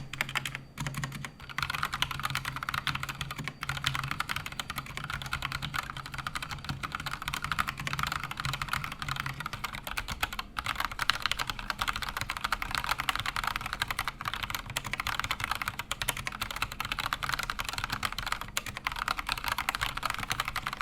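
Fast, continuous typing on an AKKO 3108 V2 mechanical keyboard with AKKO-collaboration lemon Gateron Yellow switches and OSA-profile doubleshot keycaps, a dense stream of keystrokes with a short break about ten seconds in. The tall SA-style keycaps give a bouncy, poppy sound that puts the keycaps ahead of the switches.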